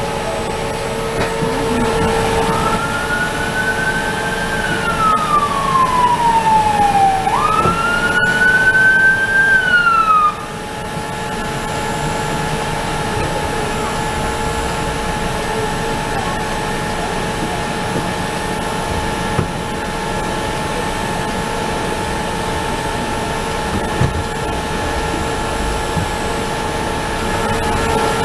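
A siren wailing, rising and slowly falling, then sweeping up and falling again before cutting off suddenly about ten seconds in. Underneath is the steady hum of the streetcar, heard from inside the car.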